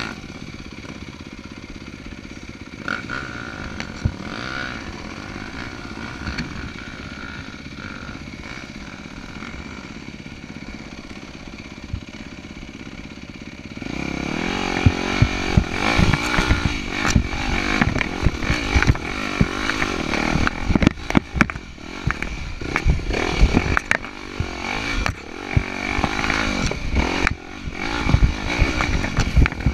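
Yamaha dirt bike engine running on a rough trail, heard close up from the bike. It is steadier and quieter for about the first half. From about halfway through it is louder, rising and falling in pitch as it revs, with frequent knocks and rattles from the rocky ground.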